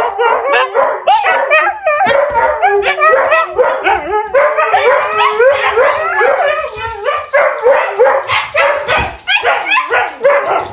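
Huskies howling and yipping without a break, their calls sliding up and down in pitch and overlapping one another.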